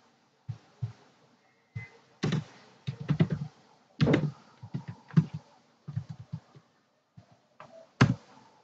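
Irregular clicking and tapping of computer keyboard keys and mouse buttons, with a few louder knocks.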